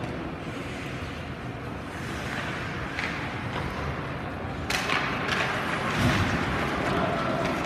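Ice hockey play in a rink: a steady background hum, then from about halfway sharp clacks and scrapes of sticks, puck and skates on the ice as play restarts after a faceoff.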